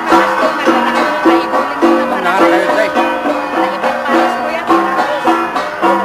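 Gangsa, flat bronze Cordillera gongs, struck in a steady interlocking rhythm. Their ringing pitched notes overlap, with accented strokes about twice a second.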